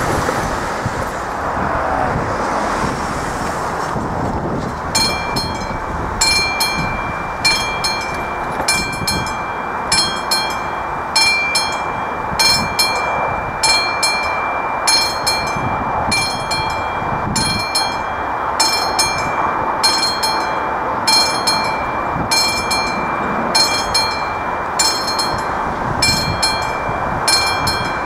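AŽD 71 level-crossing warning bell starting to ring about five seconds in, striking steadily a little more than once a second to warn of an approaching train. Road traffic noise runs underneath.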